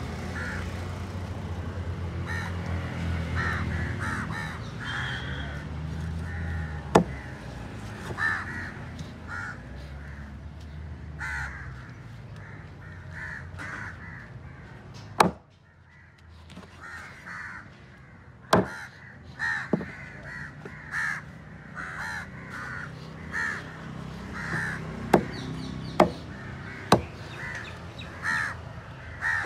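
Large knife chopping through a yellowfin trevally into a wooden cutting table: several sharp chops, closer together near the end. Birds call over and over throughout.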